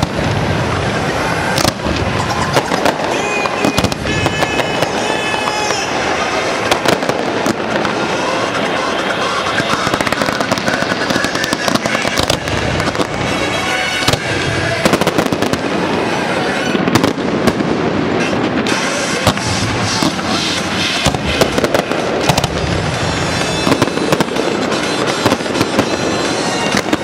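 Aerial fireworks bursting in quick succession, a steady run of bangs and crackles, over loud pop music from the display's soundtrack.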